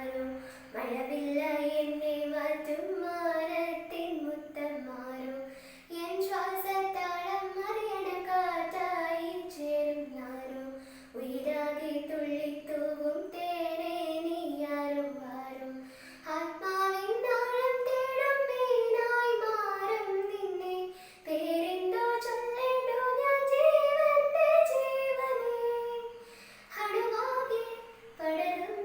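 A girl singing a slow song solo, one melodic voice with long held, wavering notes and brief pauses between phrases.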